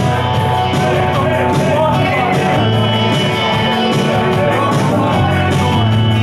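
Live rock music from a small band, electric bass and electric guitar playing loudly.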